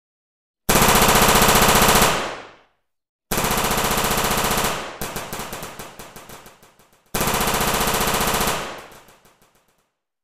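Machine-gun fire sound effect dubbed over a toy-soldier battle: three bursts of rapid automatic fire, each lasting about a second and a half and trailing off in a fading echo, with silence between them. The first burst is the loudest.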